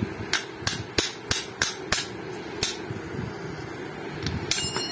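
Steel tool tapped repeatedly against the edge of a scooter clutch-shoe backplate (Honda Click 125i) to work it loose: about seven sharp metal-on-metal taps in the first three seconds, roughly three a second. A brief metallic jingle follows near the end.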